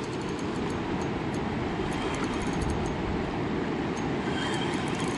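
Steady rushing roar of the fast-flowing Niagara River current, an even noisy rumble.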